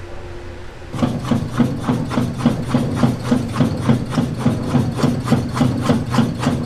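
Sausage-stuffing machine running, pushing filling through its steel nozzle into a pig-intestine casing, with a steady low hum and an even pulsing beat about three times a second; it starts about a second in.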